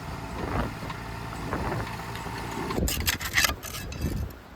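An engine running steadily at a low, even rumble, with a short burst of harsh scraping noise about three seconds in.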